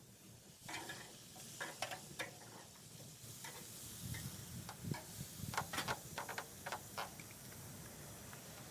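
Pork loins sizzling on a hot barbecue grill: a faint steady hiss with scattered crackles and pops.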